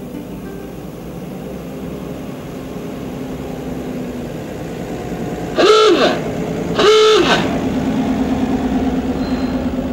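Vintage 1930s saloon car sounding its horn twice, two short honks about a second apart, over its engine; after the honks the engine runs on with a steady, even throb.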